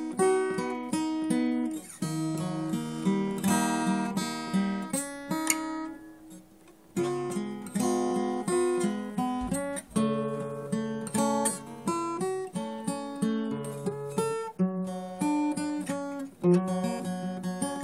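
Solo instrumental music on a plucked string instrument, with a melody over lower bass notes. The playing breaks off in a short pause about six seconds in, then carries on.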